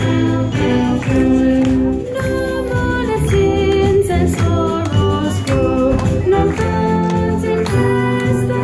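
A song with singing over a steady beat.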